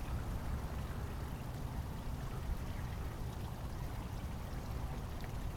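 Steady low rushing noise of wind buffeting the microphone outdoors.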